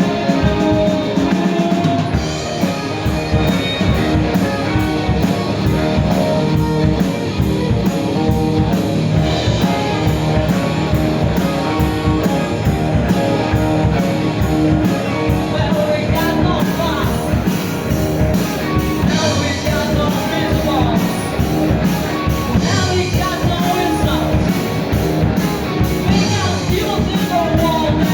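Rock and roll band playing with a drum kit and guitar, with singing over the steady beat.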